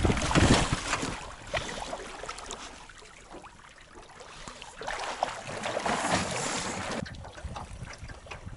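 Water splashing at the side of a small aluminium boat as a diver slides over the gunwale into the river, loudest in the first second. After that, small waves slap and trickle against the hull, with a swell of wind on the microphone in the middle.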